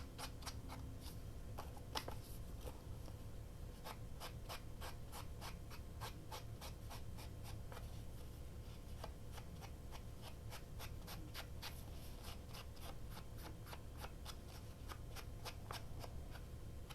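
Distress ink being dabbed and rubbed onto the edges of paper: a steady run of light, quick taps, about four a second, with soft rubbing between them.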